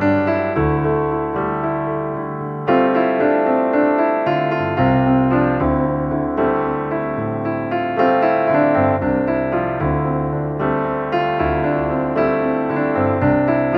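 Background music: a gentle piano piece playing steady chords and melody notes.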